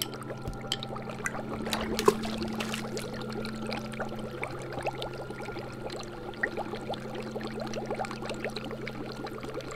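Liquid bubbling and gurgling: a dense patter of small bubble pops and trickling over a low steady hum, with one sharper click about two seconds in.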